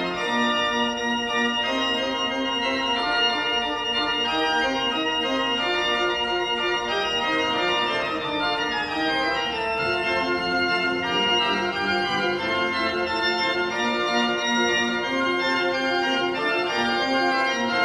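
Pipe organ playing a piece in full, sustained chords, the notes changing steadily throughout.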